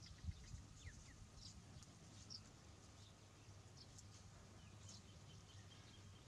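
Near silence: a faint background with scattered short high chirps, a couple of soft taps about a third of a second in, and a quick run of faint ticks near the end.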